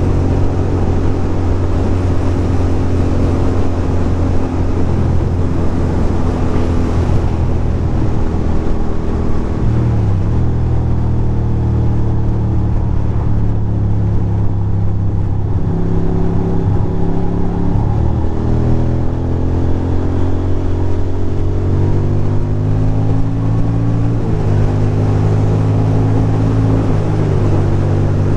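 A 2006 Ducati Monster 620's air-cooled L-twin engine pulling at road speed, heard from the rider's seat with wind rush. Its note dips around ten and eighteen seconds in, then climbs again as the throttle comes back on.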